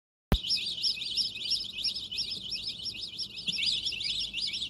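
Birds chirping in a quick, continuous run of short rising-and-falling notes, several a second. The sound cuts in suddenly with a click after a moment of silence.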